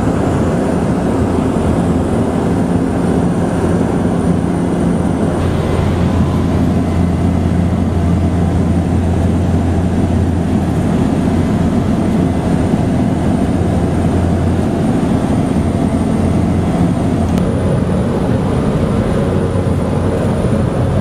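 Steady drone of a Cessna light aircraft's piston engine and propeller, heard from inside the cabin. The low hum changes slightly about five seconds in and again near the end.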